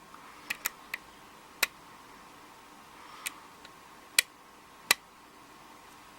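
Lock pick and tension wrench working the pins of a Schlage 5-pin cylinder during single pin picking: about eight small, sharp clicks at irregular intervals. One pin is giving counter rotation and not setting.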